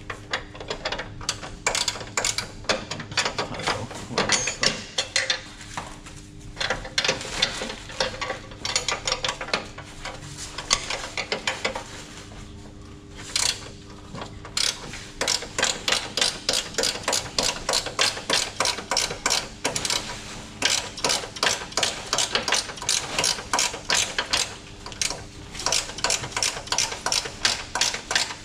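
Hand ratchet clicking in rapid runs with short pauses as a side-step mounting bolt is wound in.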